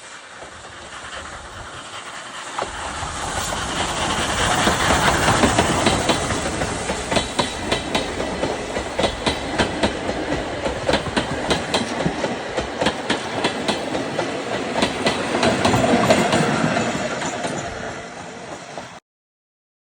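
Steam-hauled train, Oigawa Railway's Thomas-liveried C11 steam locomotive with its coaches, passing close by. It grows louder with a steam hiss, then the wheels beat a long run of clickety-clack over the rail joints as the coaches go by. The sound fades and cuts off suddenly near the end.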